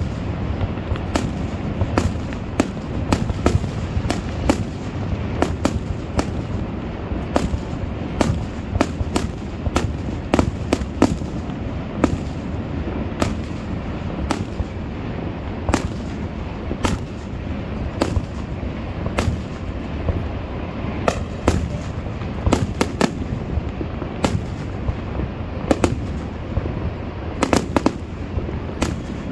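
Aerial firework shells bursting overhead: an irregular string of sharp bangs and pops, at times several a second, over a steady low rumble.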